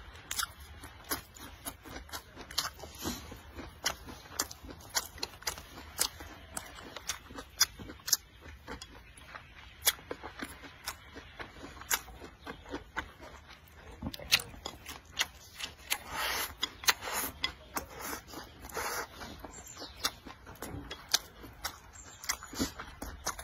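Close-up eating sounds: a man chewing and smacking his lips on mouthfuls of rice and vegetables, with many irregular sharp clicks, and wooden chopsticks scraping in a ceramic bowl.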